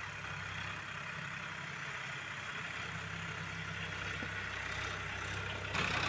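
A steady low engine hum, like an idling motor, over faint outdoor noise; a louder, rougher sound starts shortly before the end.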